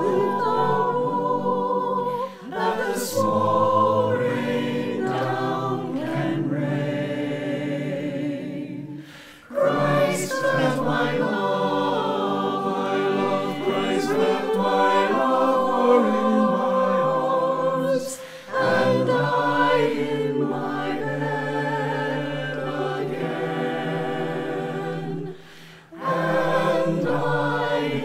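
Mixed-voice a cappella choir of men and women singing slow, sustained chords, with four short breaks between phrases.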